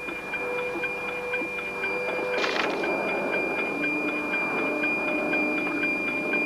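Weather-satellite picture signal from a radio receiver: a steady high whistle-like tone with a regular tick-tock, typical of an APT weather-satellite transmission being received. A brief noisy rustle comes about two and a half seconds in.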